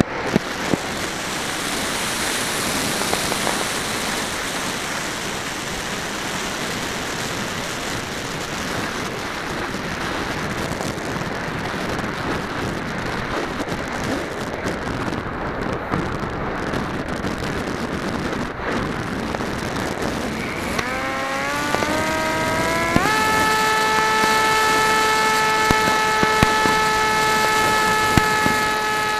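Airflow rushing over the onboard camera microphone of an RC flying wing in flight. About twenty seconds in, the propeller motor's tone rises in pitch as it speeds up, then holds steady.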